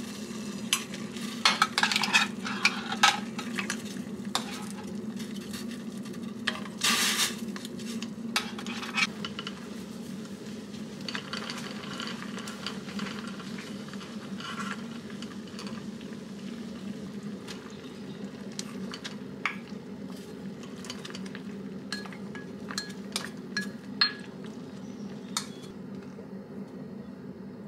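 Water boiling in a stainless steel saucepan on a gas stove, with a spoon stirring and knocking against the pot. A cluster of sharp knocks comes in the first few seconds, a louder knock about seven seconds in, and lighter clinks near the end, over a steady low hum.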